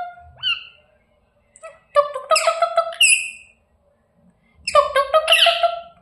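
Pet rose-ringed parakeet calling in harsh, pulsing squawks: the end of one call at the start, then two loud bouts of about a second each, a couple of seconds apart.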